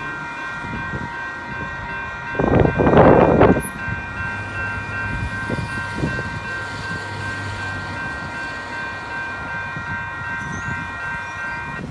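Railroad crossing electronic bell (e-bell), scratched and giving a rough, distorted ring, rings steadily while the gates rise and stops near the end. A loud rushing burst lasting about a second cuts in about two and a half seconds in.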